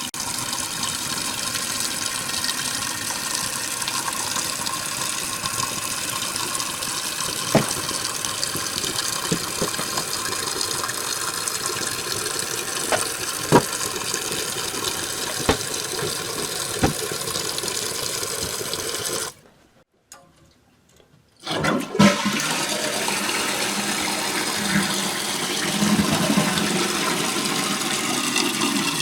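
Crane toilet flushing and refilling with a new adjustable Fluidmaster 502 flapper, a steady rush of water with a few sharp clicks. It gives a double flush, the sign that the flapper's setting is too high and needs turning down. The sound drops out for about two seconds around two-thirds of the way through, then the water resumes.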